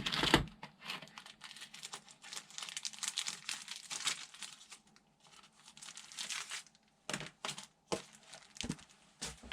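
Hand work on a small plastic kit part, with a little piece being cut: dense scratching and crinkling for about four seconds, then a few separate light clicks and knocks near the end.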